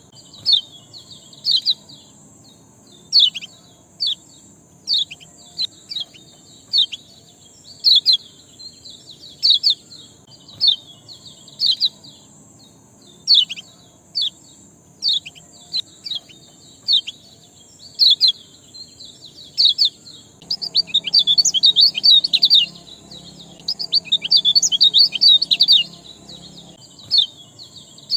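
Small songbird giving short, sharp, high chirps repeated about once a second, breaking into a fast run of excited chirping about two-thirds of the way in.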